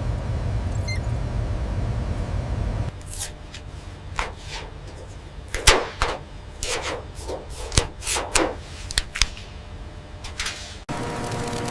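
Steady low machine rumble. It gives way abruptly to about a dozen sharp, irregularly spaced hits, then near the end to a steady machine hum with a few steady tones.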